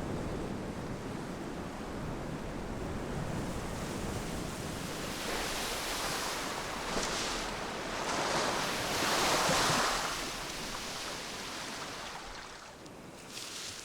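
Ocean surf, waves washing in with rushes that swell around the middle and die down near the end.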